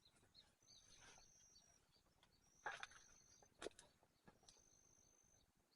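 Quiet outdoor ambience. A faint, high, thin call repeats about every two seconds, with two short faint clicks near the middle.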